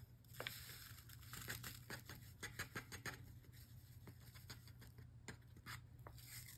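Coffee powder pouring from a paper stick packet into a stainless-steel mug: a faint, irregular run of small ticks and patters, with light rustling of the packet.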